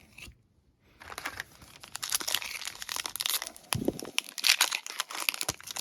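Trading card pack wrapper being torn open and crumpled, a dense crinkling and ripping that starts about a second in; the pack is torn to shreds.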